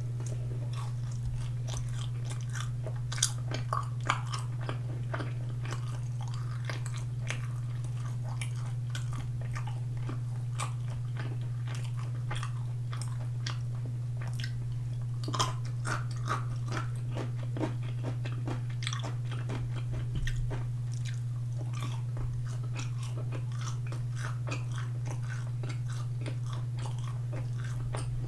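Close-miked chewing and crunching of sauced boneless fried chicken and pickled radish cubes, many small wet mouth clicks and crunches with a few louder bites, over a steady low hum.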